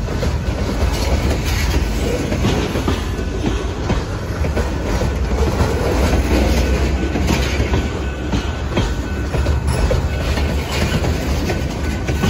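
Freight train cars rolling past close by: a steady low rumble with wheels clacking over the rail joints, as covered hopper cars give way to tank cars.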